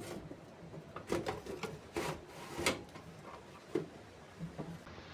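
Irregular knocks, clicks and rubbing of hard objects being handled, about half a dozen short sounds.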